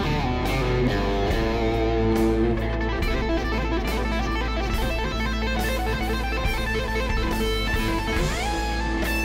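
Fender Stratocaster electric guitar played through an amp modeler: an improvised solo of single notes, some quick and some held, with a slide up the neck near the end.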